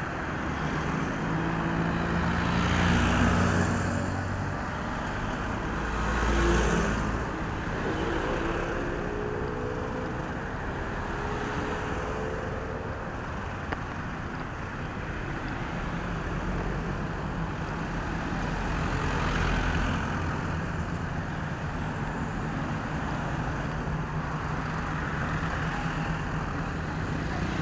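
Busy city road traffic, cars and motorbikes driving past close by. A few passing vehicles swell louder and fade away, and about a third of the way in one engine's note climbs for several seconds as it speeds up.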